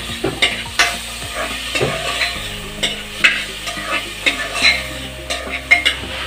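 Spoon stirring lentils and jackfruit seeds as they fry in oil in an aluminium pressure cooker: irregular scrapes and clicks against the pot over a light sizzle.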